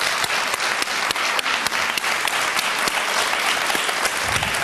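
Studio audience applauding, dense and steady clapping.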